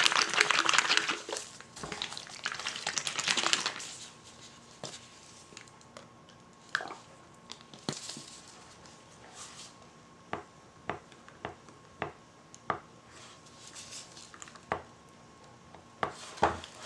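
Liquid soap colorant squirted from a plastic squeeze bottle with a dense crackly hiss at the start and again a couple of seconds later. After that come scattered light clicks and taps of a plastic spatula against plastic cups as the colour is stirred into soap batter, a few more close together near the end.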